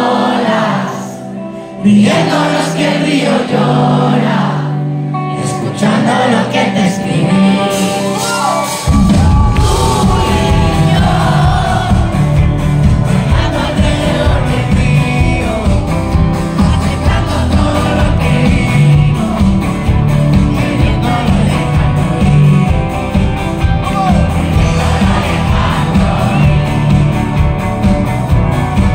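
Live pop band music with singing. About nine seconds in, the drums and bass come in and the full band plays on.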